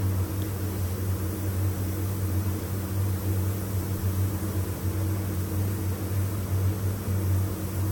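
Automotive paint booth running during spraying: a steady low hum from the booth's ventilation fans under an even rush of air, with the hiss of the spray gun as a car body is painted.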